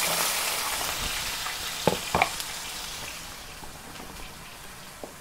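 Potatoes sizzling in hot fat in a cazuela just after going in, the sizzle fading steadily as it settles. Two light clicks about two seconds in.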